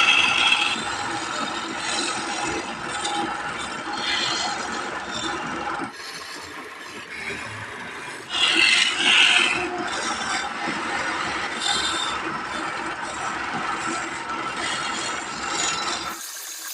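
Wood lathe running while a turning tool cuts the spinning wood, a continuous rough scraping and rattling. The sound changes abruptly about six seconds in, with a louder stretch a couple of seconds later.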